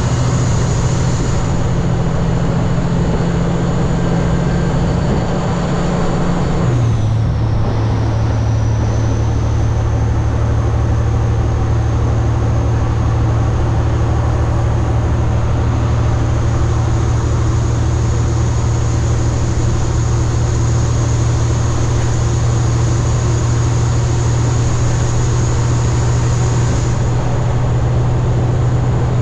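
Kenworth W900 semi truck's diesel engine heard from inside the cab while driving, a steady low engine note that drops in pitch about seven seconds in and then holds steady.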